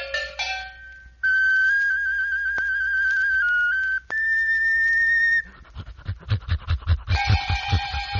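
Background music: a high, whistle-like melody of long held notes, joined about five seconds in by a quick low drum beat and fuller chords near the end.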